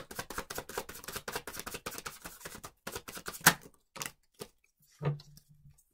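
Tarot cards being shuffled in the hands: a fast, dense run of card-edge flicks for about three seconds, then a few separate, louder snaps of cards.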